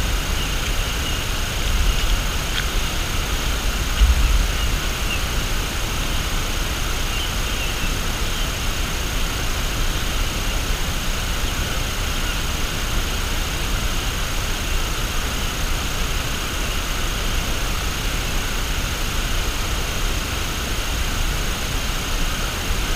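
Steady outdoor background hiss, with brief low rumbles of wind buffeting the microphone about two and four seconds in.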